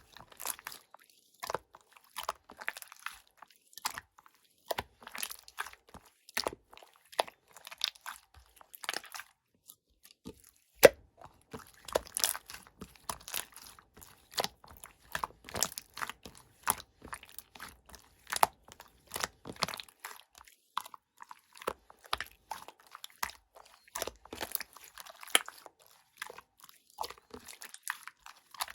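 Pearl slime being squeezed and worked by hand: a dense, irregular run of short sticky clicks and pops, with a brief lull about ten seconds in.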